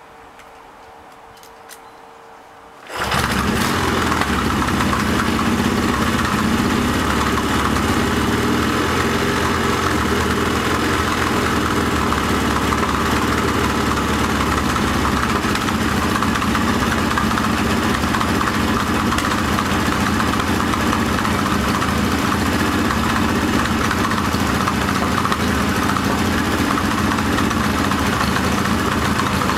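Yamaha XS650 parallel-twin motorcycle engine starting suddenly about three seconds in, then running steadily. The ignition timing is still being set.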